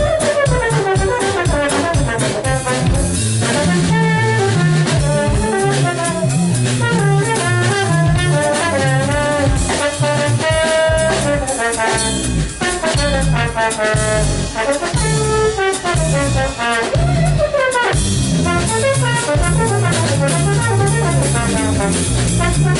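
Live jazz jam: a trombone plays a bending melodic line over drum kit and keyboard accompaniment.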